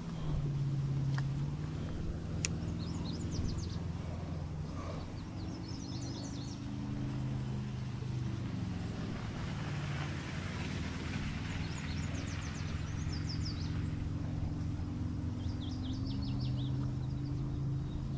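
A steady low engine hum whose pitch slowly rises and falls, with birds singing short rapid trills four times over it.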